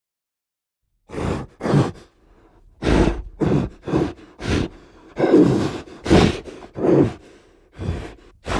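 Creature sound effects for the Ivyceros: a series of about ten short grunts and growls, starting about a second in.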